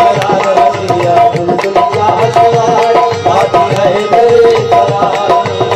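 Instrumental break in a sung devotional manqabat: tabla-like hand drums keep a steady rhythm under a held, gliding melodic line, with no singing.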